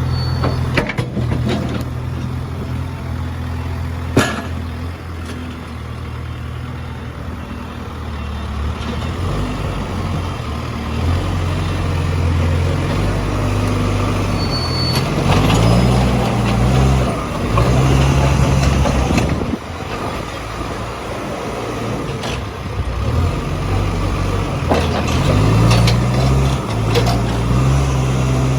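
Case 851EX backhoe loader's diesel engine running, its speed rising and falling several times, mostly in the second half. A sharp knock sounds about four seconds in.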